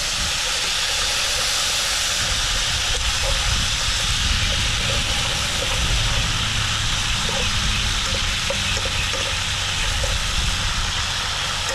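Chopped vegetables sizzling steadily in a little hot oil in a pan, with a low rumble underneath and a few faint pops.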